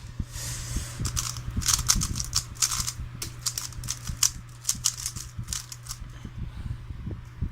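A 3x3 Rubik's cube being turned quickly by hand as it is scrambled: a fast, irregular run of plastic clicks and clacks as the layers snap round, over a steady low hum.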